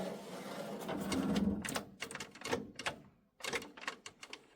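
A faint steady hiss, then from about two seconds in a run of light, irregular clicks and knocks, two or three a second.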